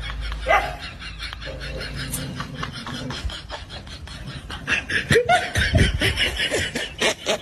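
A person laughing, in short repeated bursts that grow busier in the second half.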